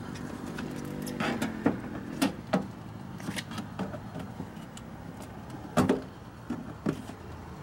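Scattered sharp clicks and knocks of plastic and metal as a pry tool works at a Ford F-150 door panel trim and its push-in clips, over a low steady hum.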